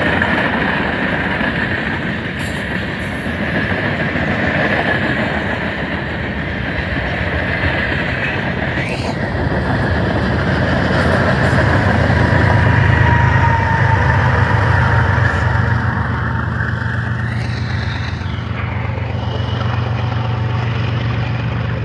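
Freight train cars rolling past close by: a loud, steady rumble of steel wheels on the rail.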